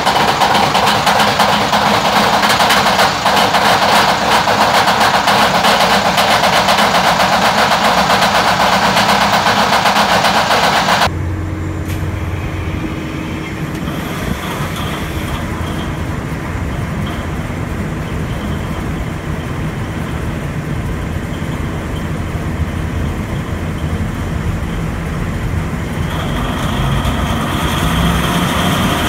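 Diesel generator engines running just after a cold start. The first runs loud and rough. About 11 seconds in it gives way to a quieter, steady low hum from a large enclosed standby generator, which gets louder from about 26 seconds in as it comes up to speed.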